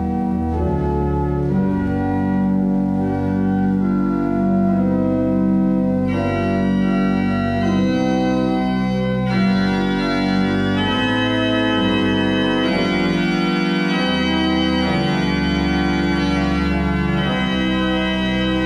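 Pipe organ playing a slow passage of sustained chords with several stops drawn together, deep bass notes underneath. Brighter, higher tones join about six seconds in and the sound gets fuller.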